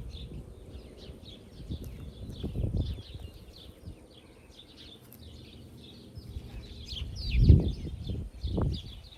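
Small birds chirping on and off throughout, with a few low thuds and rustles from digging in garden soil; the loudest thud comes about three-quarters of the way through.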